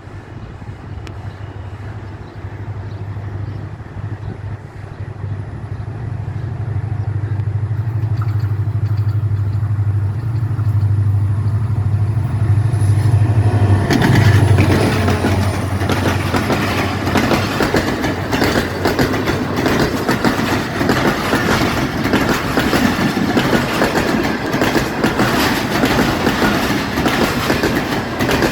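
HGMU-30 diesel-electric locomotive's engine drone growing steadily louder as it approaches, then about halfway through the train passes and the coaches' wheels clatter loudly and steadily over the rail joints.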